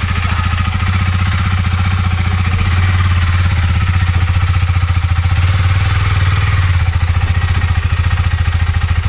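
KTM 390 Duke's single-cylinder engine idling with a steady, rapid beat, growing a little louder from about three seconds in as the bike is walked up the ramp into the van.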